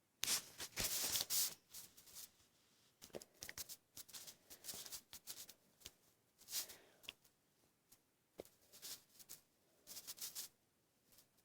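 Rustling and handling noises of craft materials, in short irregular bursts with a few light clicks.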